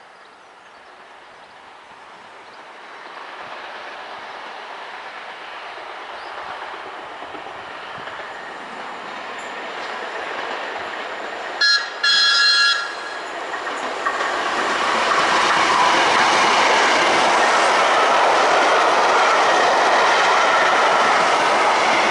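Hastings diesel-electric multiple unit 1001 approaching, its running noise growing steadily louder. About twelve seconds in it sounds its horn twice, a short blast then a longer one, and from then on it runs loud and steady as it draws near.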